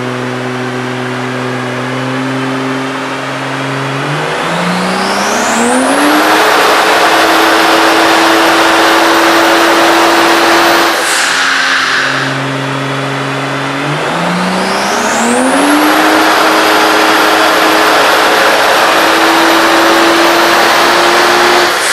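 Tuned MKIV Toyota Supra's straight-six engine, run under load on a chassis dyno with its automatic gearbox: twice it climbs in pitch over about two seconds and then holds a loud, steady high note for several seconds. Between the two runs it drops back to a lower steady note.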